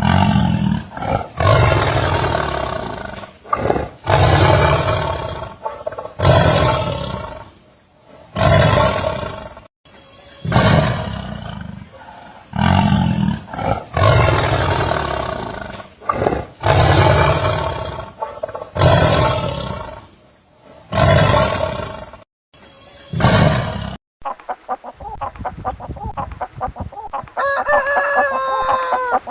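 A tiger roaring again and again, about a dozen loud, drawn-out roars each fading away, the sounds of an angry tiger. In the last few seconds it gives way to a different, thinner-sounding recording with a pitched animal call near the end.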